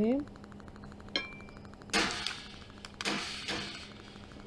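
An aluminium baking tray handled on a tabletop: a small metallic ding about a second in, then two brief knocks about a second apart.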